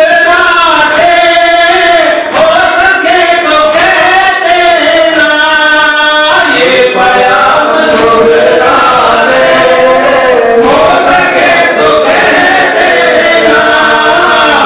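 Men chanting a Shia Muharram noha (mourning lament) together into microphones: a slow, melodic male chant with drawn-out notes.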